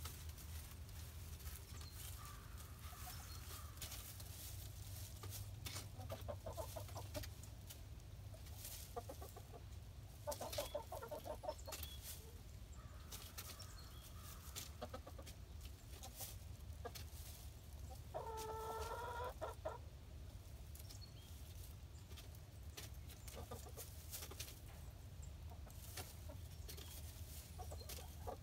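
Hens, Buff Orpingtons among them, clucking softly in short bursts, with one longer, louder call about eighteen seconds in. Scattered light clicks run through it over a steady low rumble.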